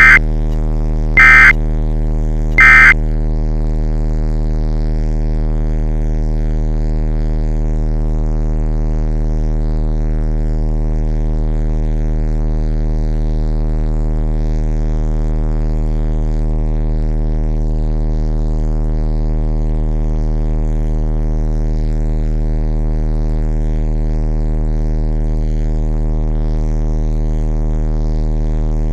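Three short bursts of Emergency Alert System SAME data tones, the end-of-message signal that closes an alert, about a second and a half apart. Under them and on through the rest, a steady electrical buzzing hum with many overtones.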